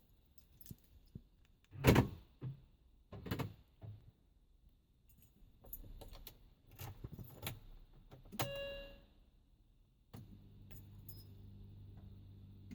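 Car keys jangling with a loud thud and several clicks, a short electronic chime, then a sharp click followed by a steady low hum as the key is turned in a 2002 Mini Cooper S (R53). The engine does not crank: the car clicks instead of starting, though the battery is charged.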